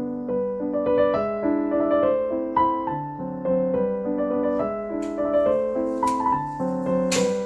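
Gentle background piano music, with notes changing at an even pace. Faint brief noises around five to six seconds in and a short sharp noise near the end sit under the music.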